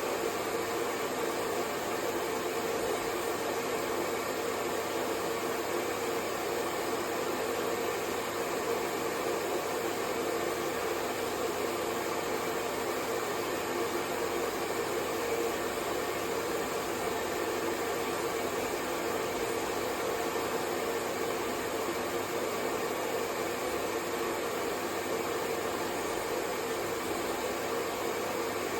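Hair dryer running steadily: an even rush of blown air with a hum underneath, unchanging throughout.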